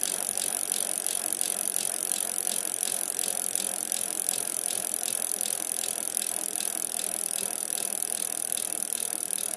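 Steady, evenly repeating mechanical ticking and rattling over a high hiss, laid down as a sound effect.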